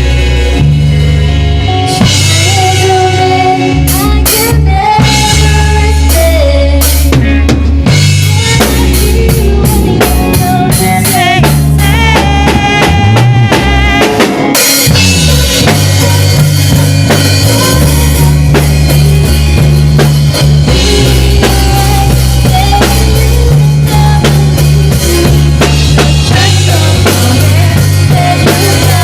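Rock band playing: a drum kit with bass drum, snare and rimshots drives a steady beat over electric bass and rhythm guitar.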